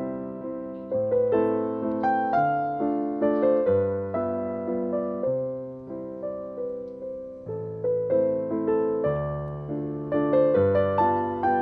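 Background piano music: a melody of single notes over held lower notes, each note striking and then fading.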